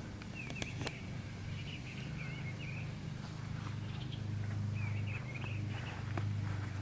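Songbirds chirping and warbling in short phrases over a steady low hum that grows louder about four seconds in, with a few faint footstep-like clicks.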